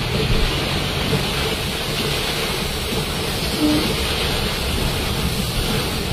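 Heavy rain hitting a car's roof and windshield, heard from inside the moving car as a steady rushing noise over the low rumble of the car on the wet road.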